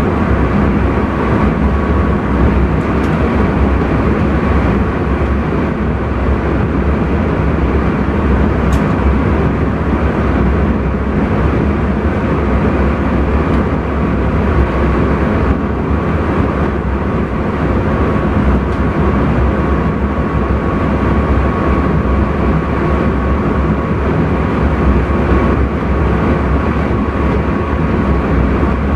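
Intercity train running steadily, heard from inside the driver's cab: a constant rumble and rolling noise with a faint steady high tone above it.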